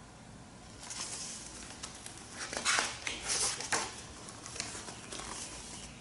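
A picture book's paper page being turned and the book handled: soft rustling and sliding of paper, loudest from about two and a half to four seconds in.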